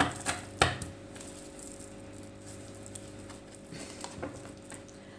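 A deck of reading cards being handled: two sharp snaps of the deck in the first second, then a few softer card clicks about four seconds in as a single card is drawn out. A faint steady hum runs underneath.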